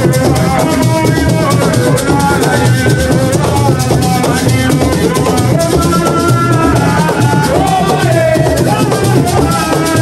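Live assiko music: drums and rattling shakers play a dense, steady groove, with a voice singing through a microphone over it.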